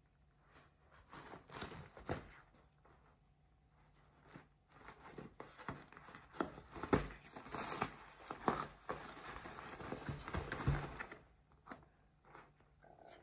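Paper towel from a kitchen roll crinkling and tearing as a cat claws and bites at it. The rustles come in irregular bursts, sparse at first, busiest from about five seconds in, then dying down near the end.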